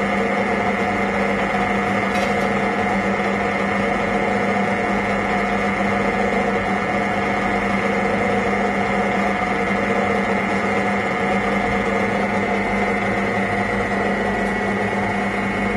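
Metalworking lathe running steadily in low gear, with a constant mechanical hum and whine, while a two-wheel knurling tool rolls a grip pattern into an aluminium rod.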